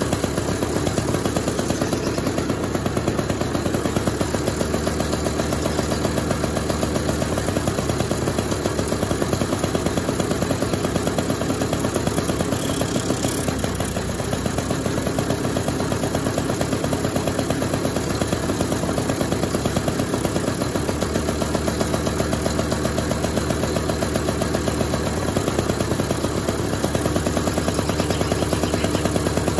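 Honda Express 49 cc two-stroke single-cylinder scooter engine running on a bench test, firing in a fast, even rhythm, its throttle worked by hand at the carburetor. The running dips slightly about halfway through, then steadies again.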